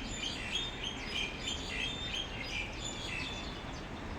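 A flock of small birds chirping together in a tree, many short overlapping chirps that thin out after about three seconds.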